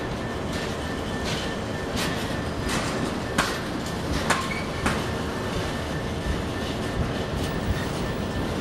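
Empty intermodal container flat wagons of a freight train rolling past, wheels rumbling steadily on the rails. A run of sharp clicks over rail joints comes in the middle, over a faint steady high wheel squeal.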